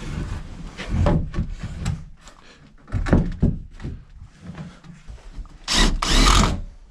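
Wooden knocks and clunks of framing lumber being handled, then near the end a power drill runs in a short burst with its pitch rising and falling.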